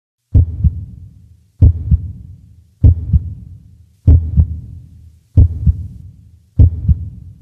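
Heartbeat sound effect: six low double thumps, lub-dub, about 1.25 seconds apart, each fading away before the next.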